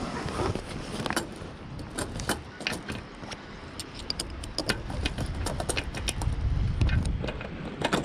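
Mainsail cars and batten fittings clicking and knocking against the mast track as they are worked onto it by hand, with a low rumble building in the second half.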